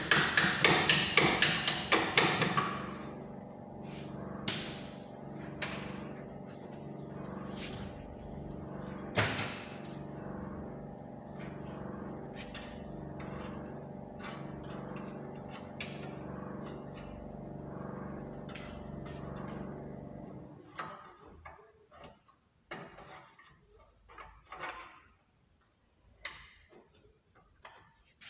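Hand tools working on a car's underside: a quick run of loud clicking at the start, then scattered metallic taps and knocks, over a steady machine hum that cuts off about twenty seconds in.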